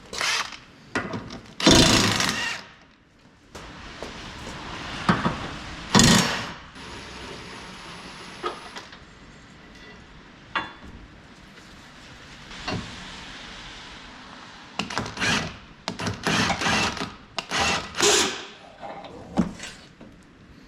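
Workshop work on a car's suspension: hand tools and metal parts knocking and clanking at irregular intervals. There are louder clatters about two seconds and six seconds in, and a quick run of them from about fifteen to eighteen seconds.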